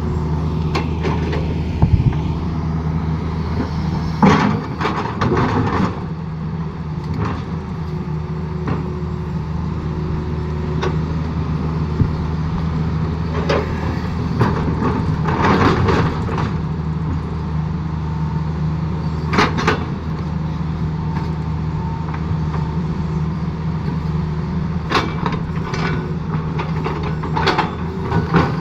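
Excavator's diesel engine running steadily, with irregular clanks and scraping from the machine working.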